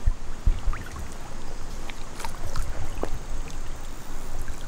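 Creek water sloshing and lapping around an angler's waders as he stands in the current, with scattered small splashes and low thumps.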